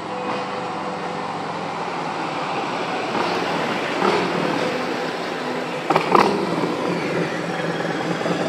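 Steady motor-vehicle noise, a rumble and hiss, with two sharp knocks close together about six seconds in.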